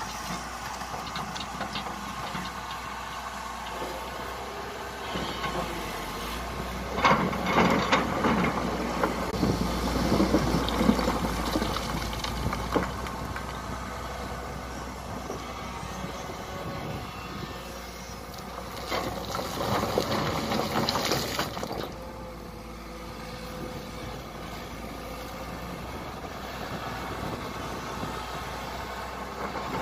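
Kobelco SK200 hydraulic excavator's diesel engine running as it works, with two louder clattering stretches, about a quarter of the way in and again around two-thirds through, as rock and soil are dropped from its bucket down the canal bank.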